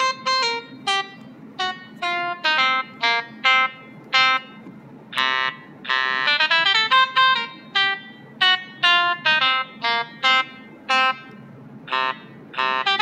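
Samsung SPH-A660 flip phone playing a polyphonic ringtone: a quick tune of short synthesized notes, with a few drum-like hits about five, six and twelve seconds in.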